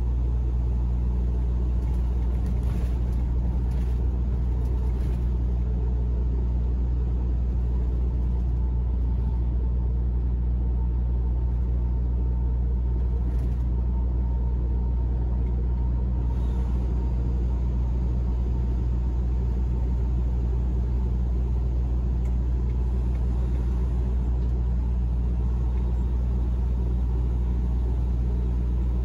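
Steady low engine and road drone heard inside a truck's cab while cruising at highway speed.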